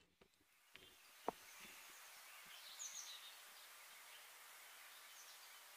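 Near silence: faint outdoor ambience with a low hiss and a few faint, high bird chirps, broken by one soft click about a second in.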